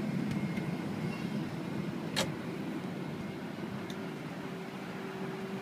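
Steady low mechanical hum of air-handling machinery around a parked airliner, with one sharp click about two seconds in and a fainter one a little later.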